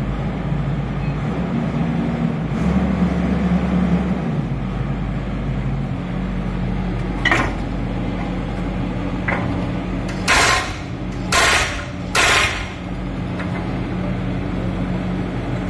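Excavator's diesel engine running steadily while its newly installed hydraulic breaker is test-fired: a sharp knock, then three short, loud bursts of clatter about a second apart.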